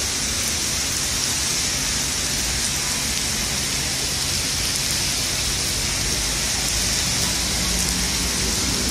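Heavy rain falling: a steady, even hiss.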